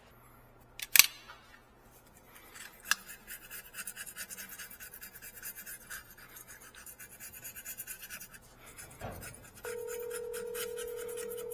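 Rapid hand scraping strokes, several a second, of the kind made scraping old gasket material off a steam trap's body, with a sharp click about a second in and another about three seconds in. Near the end a steady electronic-sounding tone starts abruptly and holds.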